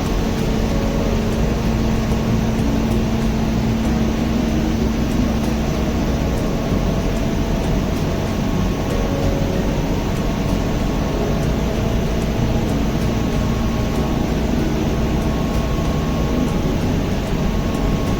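Steady mechanical drone of running machinery, loud and even, with a low hum and a faint higher whine held on top.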